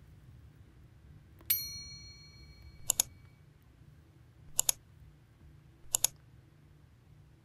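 Subscribe-button sound effect: a bright chime about a second and a half in that rings for over a second, followed by three quick double mouse clicks about a second and a half apart.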